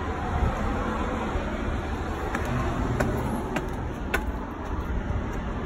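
Steady low rumble of outdoor road traffic, with four light clicks about half a second apart in the second half: footsteps on concrete steps.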